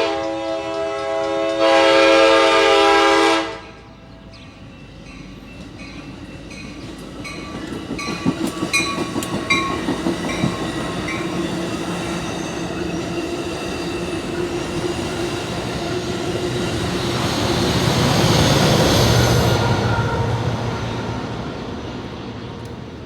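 Amtrak Surfliner passenger train sounding a long horn blast that swells about two seconds in and cuts off about three and a half seconds in. The train then rolls past, its wheels clicking rhythmically over the rail joints, and its rumble builds to a peak and fades near the end.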